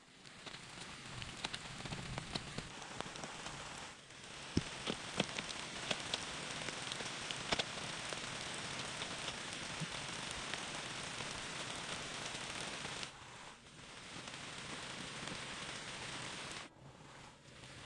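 Steady rain pattering, with many small sharp drop hits through it. It falls away briefly a few times.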